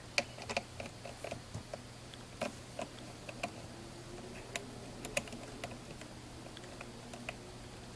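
Light, irregular clicks and taps of a hand tool on a small 1/4-inch-headed screw and the chainsaw's plastic housing as the screw is worked loose.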